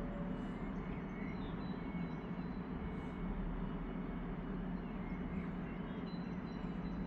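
Steady low background rumble, with a few faint short bird chirps over it.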